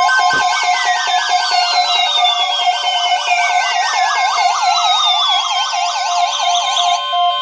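Several weather radios sounding their alarms at once. A fast warbling siren-like alert rises and falls several times a second over a steady alert tone and a rapidly pulsing beep, and the warble cuts off near the end.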